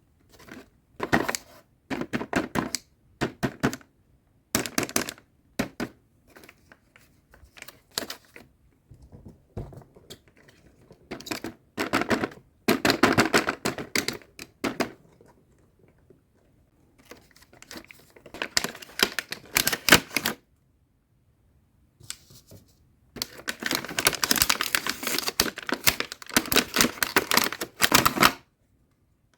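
Hands unboxing and handling small toy accessories and their packaging: clicking, tapping and crinkling in short bouts with pauses, the longest and busiest bout about three quarters of the way through.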